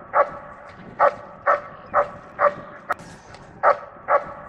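A dog barking repeatedly, about two barks a second, with a pause of about a second partway through.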